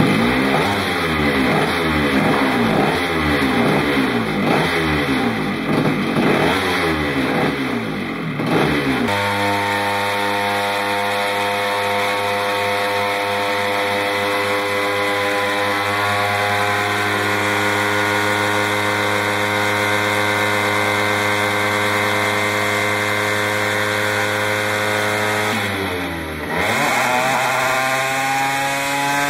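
McCulloch MC49 80cc two-stroke kart engine running on an inertial dyno. It comes in loud and surges up and down unevenly for about nine seconds, then holds a steady speed. Near the end the revs drop briefly and then climb with a rising pitch.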